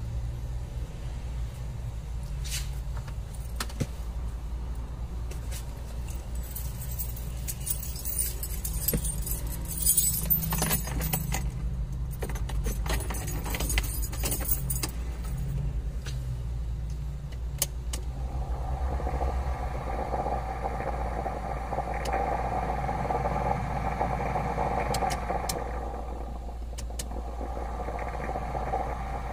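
Toyota Hiace blower fan, newly fitted with two replacement bearings, under test. First come clicks and rustling of handling; then, a little past halfway, the fan runs with a steady whir, drops out briefly near the end and comes back. A steady low hum runs underneath throughout.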